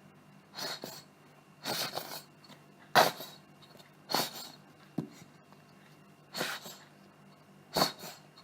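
Utensil stirring and scraping 2-minute noodles in a bowl, in about seven short strokes a little over a second apart, with one short click about five seconds in.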